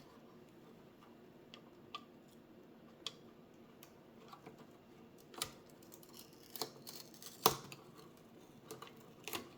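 Faint, irregular small clicks and ticks from hands working on the cable connectors and tape inside an opened LCD monitor, with two sharper clicks about five and a half and seven and a half seconds in.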